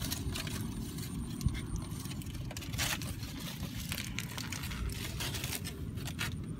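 Aluminium foil being unwrapped by hand, crinkling and crackling in short irregular bursts, over a steady low rumble.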